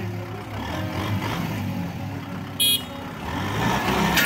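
Diesel farm tractors running steadily, a Kubota M6040 in front and a second tractor pulling a disc plough through soft soil, with the engine sound growing louder near the end. A brief high-pitched clink cuts through about two and a half seconds in.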